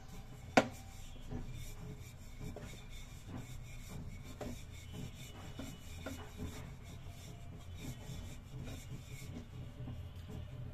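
Ribbed wooden rolling pin rolling out a floured dough wrapper on a plastic cutting board: repeated rubbing strokes, with one sharp knock about half a second in as the loudest sound.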